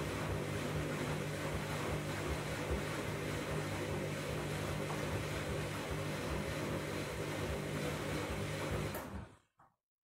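Candy front-loading washing machine running mid-cycle: a steady hum with an uneven low rumble from the drum and water. It cuts off suddenly about nine seconds in.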